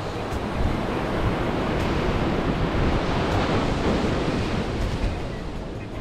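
Small surf breaking and washing up a sandy beach, a rush of noise that swells through the middle and eases near the end, with wind rumbling on the microphone.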